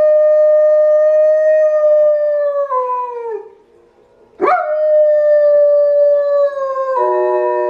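German shepherd howling: a long held howl that slides down in pitch and dies away, then after a short pause a second howl that swoops up sharply and is held. Near the end a second, lower howl sounds together with it.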